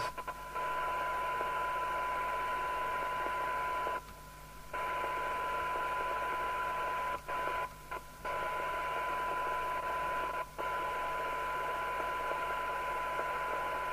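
Major 3000 FM CB radio's loudspeaker giving out the steady test tone of a received signal-generator signal, with hiss over it, during receiver alignment. The audio cuts out for under a second about four seconds in and briefly three or four more times later on.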